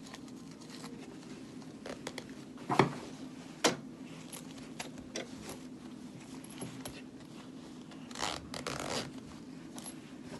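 Jeans denim and a metal zipper being handled while the zipper is pinned into the fly: soft rustling and scraping with scattered light clicks, two sharper clicks a few seconds in, and a longer rasping scrape near the end.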